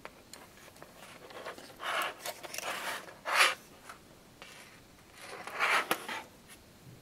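Plastic model railway coach chassis handled and slid on a tabletop: short scraping and rubbing bursts with a few light clicks. The loudest scrape comes about halfway through.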